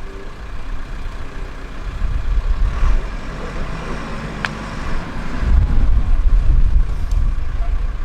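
Wind buffeting the microphone, a loud irregular low rumble that swells and fades, with one sharp click about four and a half seconds in.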